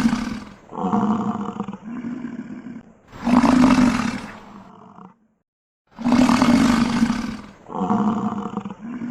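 A large animal roaring over and over: long loud roars about three seconds apart, each followed by a shorter call, with a brief silence midway.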